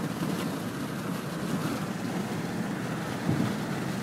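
Steady low rumble of a moving car's road and engine noise, heard from inside the cargo area, swelling briefly about three seconds in.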